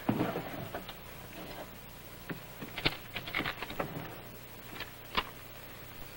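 A few scattered sharp clicks and knocks, like objects and papers handled on a desk, over a steady low hum and hiss from an old television soundtrack. A brief bit of a man's voice opens it.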